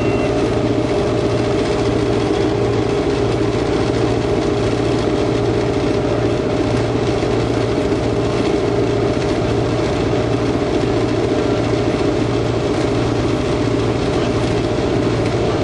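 Victorian T-class diesel-electric locomotive running steadily, heard from inside its cab while underway: a constant engine drone with a regular low pulse and wheel and rail noise.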